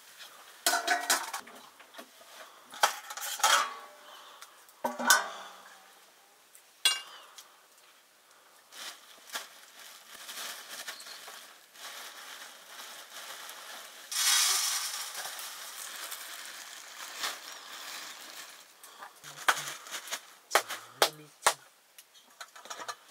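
Metal cooking utensils clinking and scraping against cookware, with several sharp clinks in the first seven seconds. About fourteen seconds in, a sizzle starts abruptly and slowly dies down over several seconds, then a few more clinks follow near the end.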